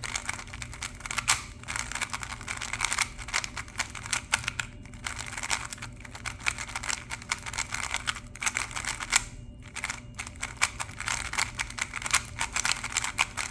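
A 3x3 speedcube being turned quickly and continuously: a dense, rapid clatter of layer-turning clicks with brief pauses. Its turning sound is low-pitched, very smooth and hollow.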